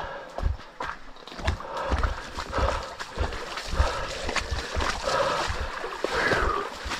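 A man's heavy, rapid breathing as he hurries on foot through scrub, over low footfalls and brush scraping.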